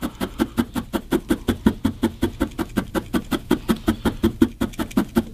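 A barbed felting needle stabbing wool into a felting mat in a fast, even rhythm of about seven or eight pokes a second.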